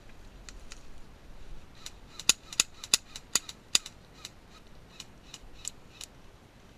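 Airsoft guns firing single shots, about a dozen sharp pops over some four seconds, the loudest five coming close together in the middle.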